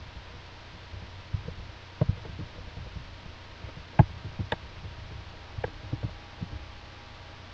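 Irregular computer keyboard keystrokes and mouse clicks, a dozen or so sharp taps with dull low thuds, over a steady low electrical hum.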